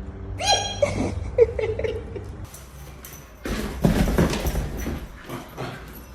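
A dog giving a few short high-pitched yelps in the first couple of seconds, followed by a few seconds of noisy rustling.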